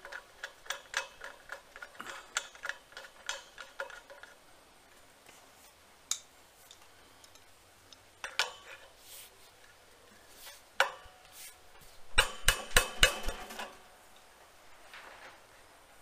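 Metal-on-metal clicking as a gas regulator's brass inlet nut is threaded onto a welding gas cylinder valve, a quick run of light clicks at first, then scattered single clinks. An adjustable wrench clanks against the fitting as the nut is tightened, with a burst of several sharp clanks near the end.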